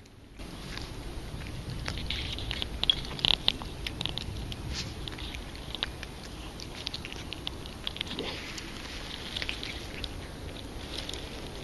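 Calico cat eating wet canned cat food close to the microphone: irregular wet chewing and licking clicks, starting about half a second in and loudest about three seconds in.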